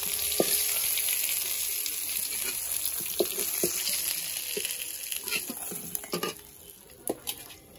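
Hot oil sizzling in a wok as the fried fish pieces are lifted out, with short clicks and scrapes of a metal spatula against the pan. The sizzle dies down after about six seconds.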